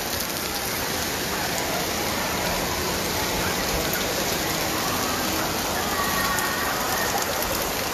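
Rain falling steadily, an even hiss with no let-up.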